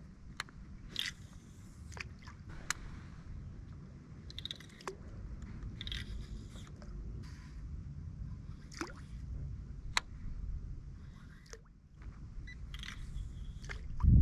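Scattered light clicks and scrapes from a baitcasting rod and reel being handled aboard a kayak, with small water drips, over a steady low rumble.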